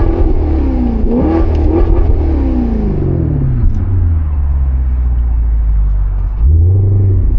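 Maserati GranCabrio's Ferrari-derived 4.7-litre V8 under throttle: the revs rise and fall twice, wind down to a low steady running, then pick up again near the end.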